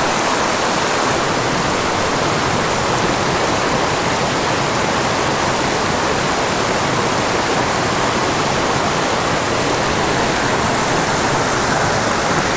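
Fast mountain creek rushing and splashing over boulders in small whitewater cascades, a steady, loud rush of water.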